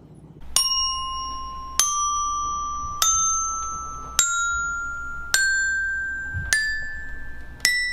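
Children's colour-coded metal-bar xylophone struck one bar at a time with wooden mallets, walking up the scale from C to B. Seven single ringing notes about a second apart, each higher than the last and left to ring out.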